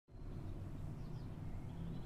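Faint birdsong: a few short chirps and a rising whistled note, over a steady low rumble.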